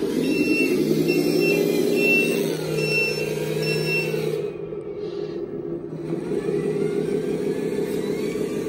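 Electronic sound module of a Lesu 6x6 RC dump truck playing a simulated diesel engine running, with five short high reversing-alarm beeps about 0.8 s apart in the first four seconds. The beeping then stops while the engine sound carries on, with a faint rising whine.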